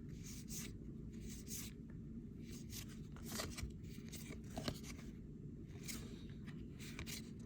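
Baseball trading cards being handled and slid one across another as a pack is flipped through: irregular short papery swishes, over a steady low hum.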